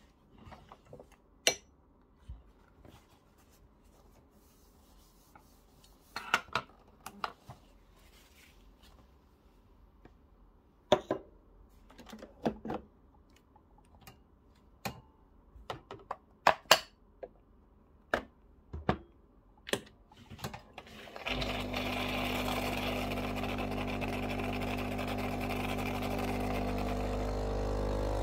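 Knocks and clicks of a metal portafilter being removed, knocked out into a knock box and handled. About 21 seconds in, the Breville Barista Pro's built-in conical burr grinder starts and runs steadily, grinding coffee beans into the portafilter.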